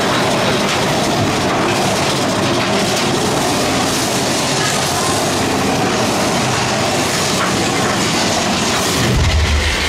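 Big Thunder Mountain Railroad's mine-train roller coaster running along its track, a loud, steady noise of wheels on rail. A deep rumble comes in near the end.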